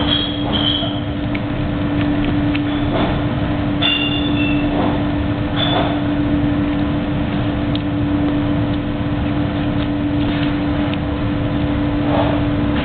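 Steady machine drone from commercial kitchen equipment, a fixed hum over a low rumble, with a few short high squeaks or clinks near the start and a few seconds in.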